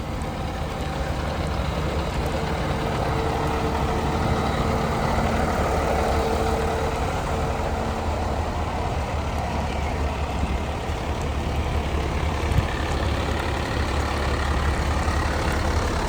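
Heavy fire truck diesel engine running steadily, a continuous low rumble with a faint steady hum over it.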